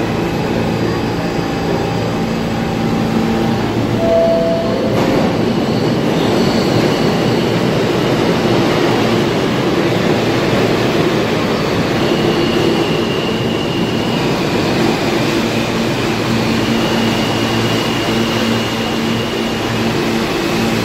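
R46 subway train standing at the platform with its doors open, its equipment giving a loud, steady hum and whir with a few steady tones that come and go.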